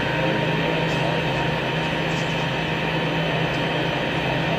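Steady droning hum with a thin high tone above it, the background machinery noise of an indoor pool hall's ventilation.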